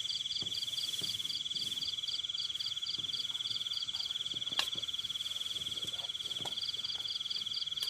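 Insects trilling steadily in a continuous high drone, with a second insect chirping in quick pulses about three times a second. A single sharp click sounds about halfway through.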